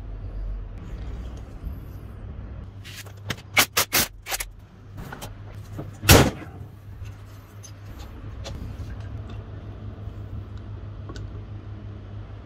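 A quick run of four or five sharp clicks and clanks, like tools and small metal parts being handled, then one louder knock about six seconds in, over a steady low hum.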